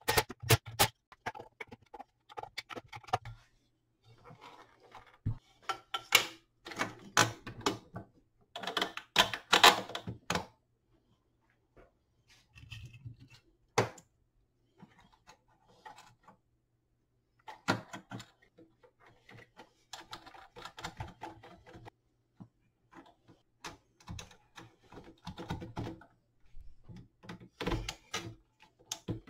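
Irregular clicks, knocks and clatter of hand tools, screws and metal chassis parts being handled while a power inverter is taken apart, with short quiet pauses between bursts.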